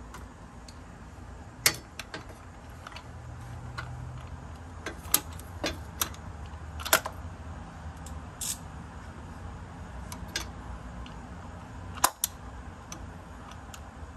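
Scattered sharp metal clicks and clinks of hand tools, a socket extension and ratchet being handled at the spark plug well, over a low steady hum.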